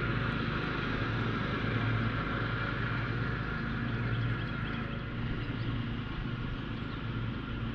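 Steady low rumble with a droning hum, like a distant motor.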